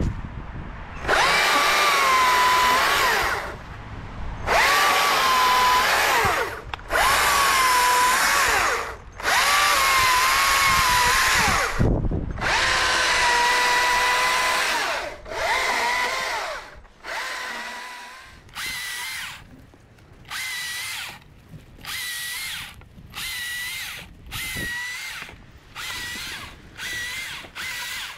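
STIHL MSA 220 C battery chainsaw's electric motor whining in repeated bursts as it cuts a fallen branch. First come several long runs of two to three seconds whose pitch sags under load and recovers, then a string of short, quieter blips about a second apart.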